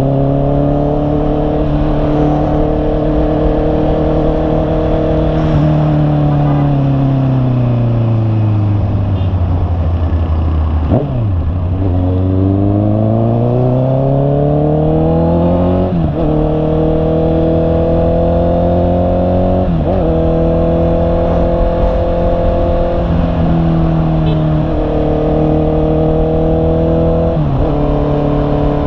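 Honda CB650R's inline-four engine under way, its note holding steady, then falling as the bike slows about a third of the way in. It then climbs again through a series of upshifts, each shift dropping the pitch briefly before it rises once more.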